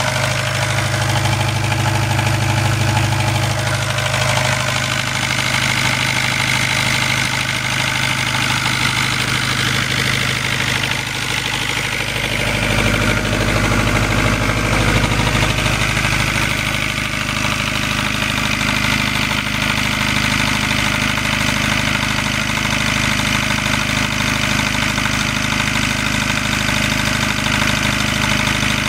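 Perkins 4.108 four-cylinder diesel engine of a generator set running steadily with no load, warming up shortly after a cold start. Its tone changes about twelve seconds in.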